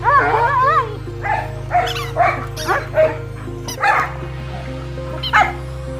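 German Shepherd yipping and whining: a wavering whine in the first second, then a string of short yelps spread through the rest. Background music with steady held notes plays underneath.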